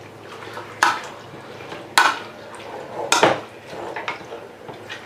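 A spoon stirring chicken in a cooking pot over a high flame, scraping against the pot. There are three sharp scrapes about a second apart, then lighter ones near the end.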